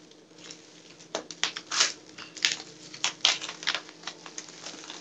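Scissors snipping through a package's plastic wrap and bubble wrap, with the plastic crinkling: a run of irregular sharp snips and crackles starting about a second in.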